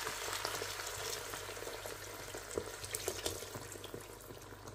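Water poured from a plastic bottle into a cooking pot full of chard and lentils, splashing onto the vegetables with a steady hiss that gradually fades.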